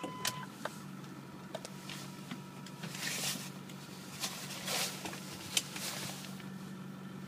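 A Ford F350's 6.4-liter Power Stroke V8 turbo diesel idling steadily, heard from inside the cab, as a low even hum. A few short hissy noises come and go in the middle.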